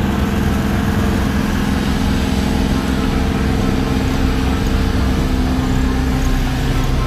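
An LCM landing craft's engines running steadily under way, a constant low drone with a steady hum above it, over the rush of the boat's wake.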